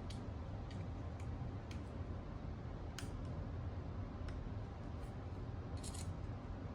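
Scattered light clicks and ticks, irregularly spaced with a short cluster near the end, from hand work on the lathe headstock's parts during reassembly. A steady low hum runs underneath.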